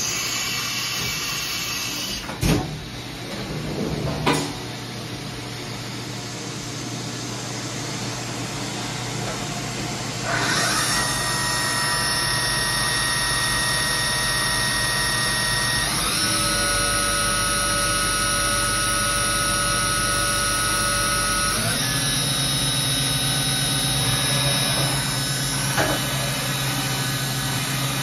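Fadal 904-1 CNC vertical machining center's spindle spinning up, its whine gliding upward about ten seconds in and stepping higher twice more, at about 16 and 22 seconds, then holding steady. Before that, a hiss and a couple of knocks.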